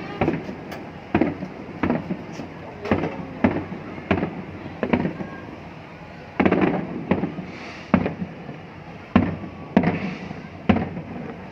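Aerial fireworks bursting in a rapid series, about one or two bangs a second, each one fading quickly, with a brief lull about halfway through.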